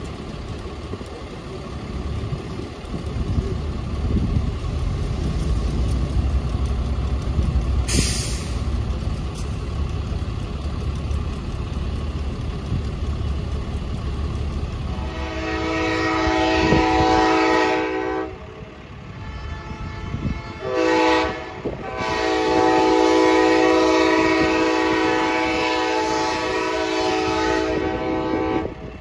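Amtrak passenger train's diesel locomotives rumbling as the train approaches. The locomotive's multi-chime air horn then sounds a long blast, a short blast and a final long held blast.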